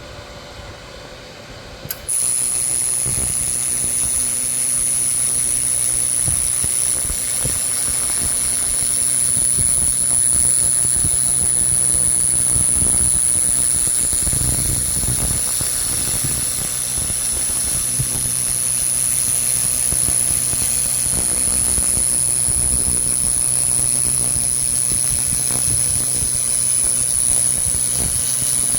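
300-watt pulsed laser cleaner switching on about two seconds in and firing continuously in a crosshatch scan, ablating rust from the metal: a loud, steady high-pitched whine over a hiss.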